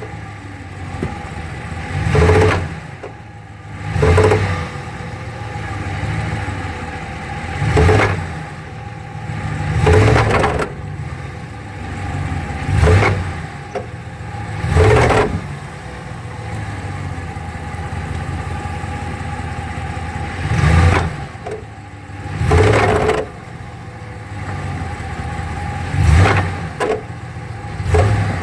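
2015 Ram 1500 running with a steady drone and a repeated loud surge about every two seconds, each lasting about half a second. This is the noise the owner puts down to the transfer case.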